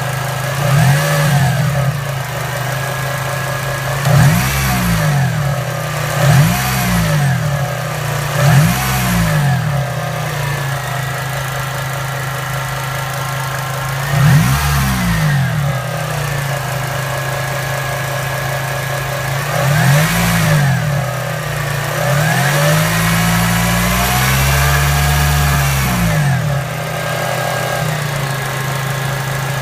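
2002 Acura RSX Type-S's K20A2 four-cylinder engine idling and revved briefly about seven times, the pitch rising and falling with each rev. A whine rises and falls with the revs; the owner places it at the serpentine belt and tensioner.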